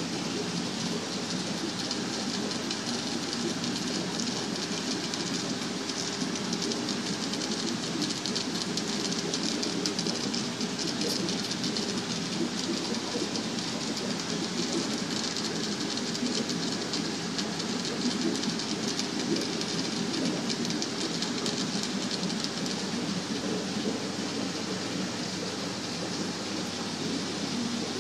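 Steady rush and fizzing bubbling of aquarium aeration and water running through a room of fish-breeding tanks, even and unbroken throughout.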